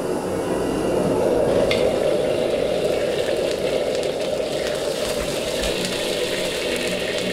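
Fried rice being stir-fried in a wok: steady sizzling over a dense low rush, with scattered light clicks and scrapes of the metal ladle against the wok.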